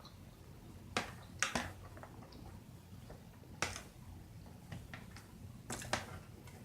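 Eating sounds close to the microphone: a scattering of short, sharp clicks and smacks, about seven of them, with quiet in between.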